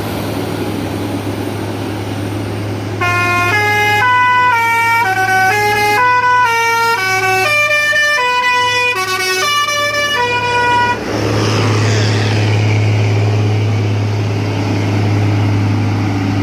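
Bus's basuri telolet horn playing a quick tune of many short stepped notes for about seven seconds, starting about three seconds in, over the steady drone of the bus engine climbing the hill. The engine grows louder just after the tune ends.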